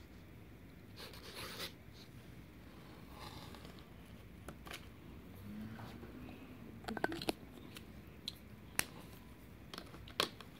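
Faint scratching of a Sakura Pigma Sensei fine-tip drawing pen writing on paper, with a few light clicks and taps as the pen is handled.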